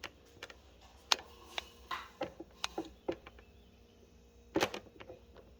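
Footsteps going to the target: a series of light, irregular clicks and knocks, with two louder knocks near the end.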